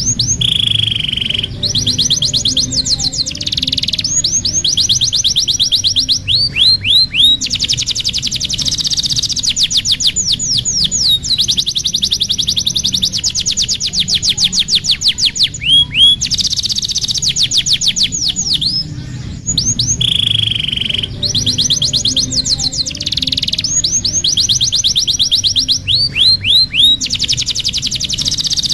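Domestic canary singing a long, continuous song of fast trills and rolls: rapid runs of repeated notes and short downward-sweeping whistles, with only brief breaks, over a steady low hum.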